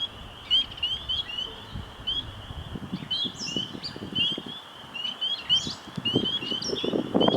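A steady chorus of short, high, rising chirps, several a second, from birds or other small creatures of a spring night. Under it a low rush of wind comes in gusts and builds toward the end.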